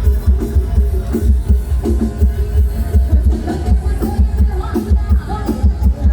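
Loud amplified music with a heavy, steady bass beat, as played from a procession's sound system.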